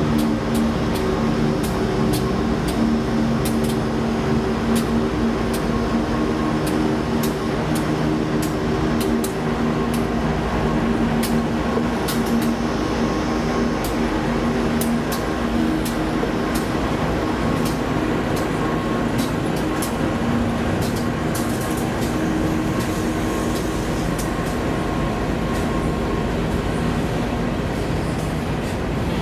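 Empty coal train passing, hauled by diesel locomotives: a steady engine drone that fades over the last few seconds, under the constant rumble of the empty hopper wagons rolling by. Many sharp clicks from the wheels on the rails run throughout.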